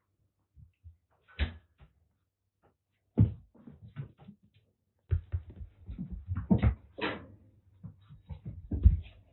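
Kittens romping and wrestling: irregular thumps and scuffles of paws and bodies landing and scrambling, a few at first and then a busy flurry in the second half, with the loudest thump near the end.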